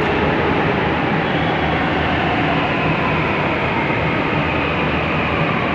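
A Delhi Metro train running along the platform: a steady, loud rumble and rush of wheels on rail, with a faint whine above it.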